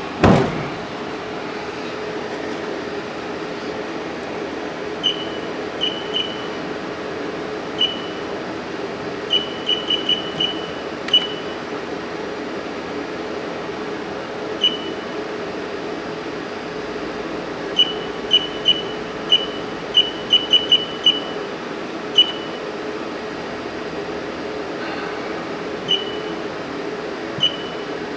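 Haas CNC control keypad beeping as keys are pressed, short single beeps and quick runs of them at one high pitch, over the steady hum of the Haas VF2-SS vertical machining center standing with its spindle not yet turning.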